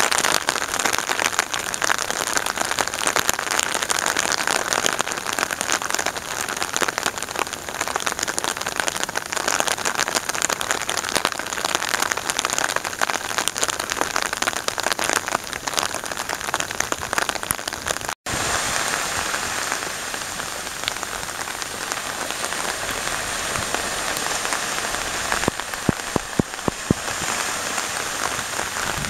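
A steady, crackling hiss of water with many tiny pattering clicks. It cuts out for an instant about eighteen seconds in and comes back a little softer and smoother.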